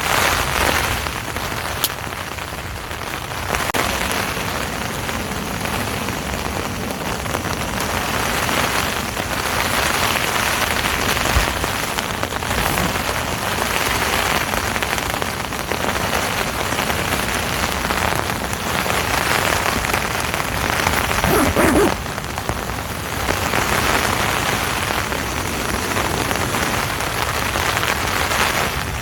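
Heavy rain falling steadily on a tent, swelling and easing in waves every few seconds.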